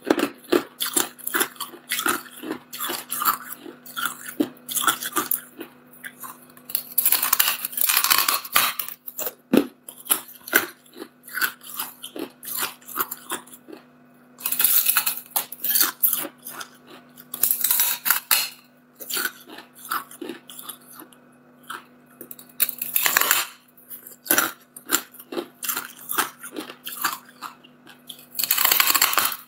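Hard clear ice being bitten and crunched in the mouth: a rapid, irregular series of sharp cracks and crunches, with a few longer hissy stretches of about a second each.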